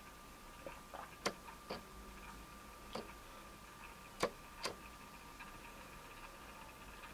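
A few faint, irregular sharp clicks, about seven in the first five seconds, over a faint steady high-pitched whine.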